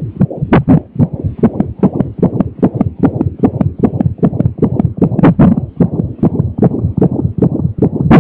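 An unborn baby's heartbeat at 33 weeks, heard through the mother's belly as a fast, steady whooshing pulse. A few heavier thumps stand out, around the middle and near the end, from the baby's hiccups.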